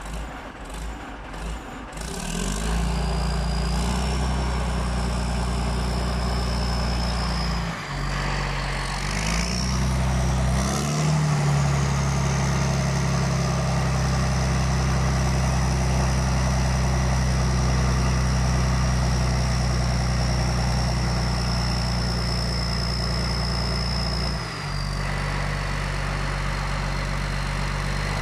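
Motor grader's big turbo diesel engine revving from idle: it climbs about two seconds in and holds at raised speed with a high turbocharger whistle, dips briefly, then runs up higher around ten seconds in and holds steady before dropping back near the end.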